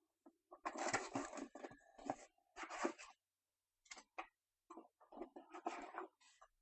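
Trading card packaging and cards being handled: irregular bursts of rustling, scraping and crinkling as a new box is opened and the cards are pulled out.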